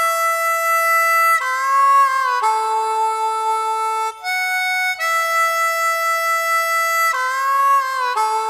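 Harmonica playing a slow melody of long held notes, one at a time, a few of them bent in pitch.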